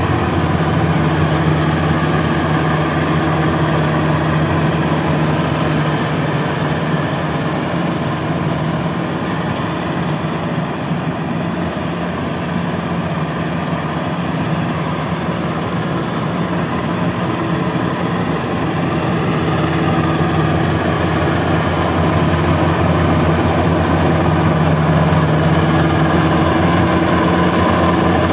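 BIMO 102 rice combine harvester running at work in a paddy field: a steady engine hum over a dense mechanical din. It gets a little quieter midway as the machine moves off, then louder again near the end as it comes close.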